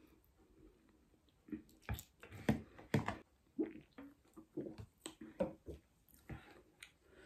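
Close-up eating sounds: chewing and slurping spicy noodles, with a burst of loud slurps and chews about two to three seconds in, followed by a run of gulping swallows from a can of soda.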